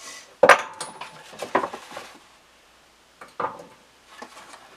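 Metal hand tools and parts clanking and clinking on a workbench. A sharp metallic clank that rings briefly comes about half a second in, followed by several lighter clinks and knocks.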